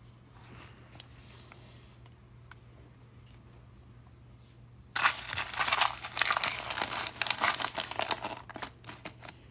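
Plastic packaging crinkling as it is handled and opened, starting about halfway in after a few seconds of near quiet.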